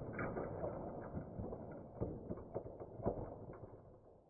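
Light handling noise of a hand among small plastic toy play-set pieces: a low rustle with a few scattered clicks and taps, fading out near the end.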